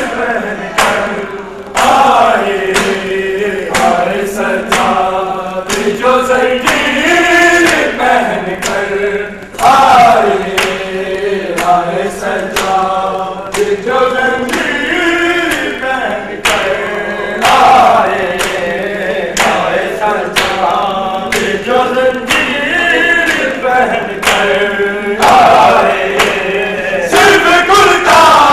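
A crowd of men chanting a Muharram nauha (lament) together, led by male voices. A steady rhythm of sharp open-hand slaps on bare chests (matam) keeps time with the chant.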